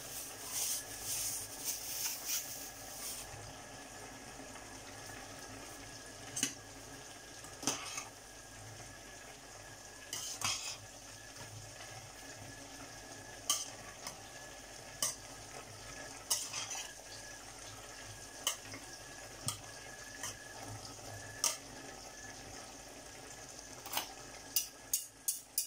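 Slotted spatula stirring vegetables in a steel saucepan, with scattered clinks and scrapes against the pot over a steady faint hiss. A rustle in the first few seconds as frozen moringa leaves are tipped in from a plastic bag, and a quick run of taps near the end.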